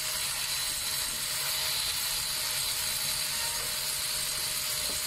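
Jackhammer chipping concrete, running continuously as a steady, rapid mechanical rattle with a lot of high hiss.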